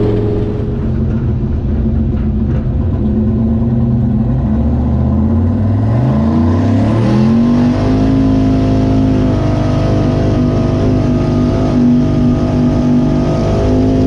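Turbocharged 5.3-litre LS V8 of a Chevy pickup running loud and steady, then revving up over a few seconds starting about five seconds in and holding at the higher engine speed.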